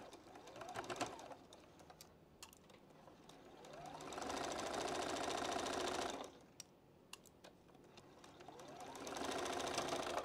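Juki sewing machine stitching through layered quilt pieces in two short runs, the motor speeding up at the start of each. A few light clicks come between the runs.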